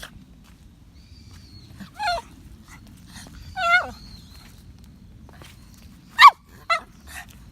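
A toy poodle whining: about five short, high whimpers that waver and fall in pitch, the loudest about six seconds in, over a low steady rumble.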